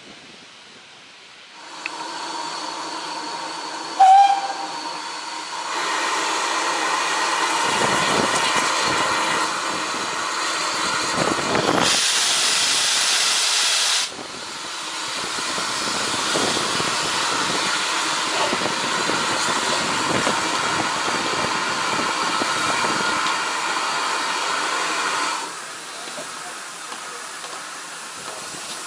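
Steam hissing from a GWR 1600 class 0-6-0 pannier tank locomotive, starting about two seconds in and stopping near the end, with a brief loud pip about four seconds in and a louder rush of steam for about two seconds midway.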